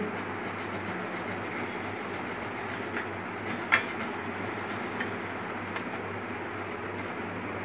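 Khoya kheer being grated by hand on a flat metal grater: a steady scraping as the block is rubbed back and forth over the blade holes, with a couple of light clicks midway.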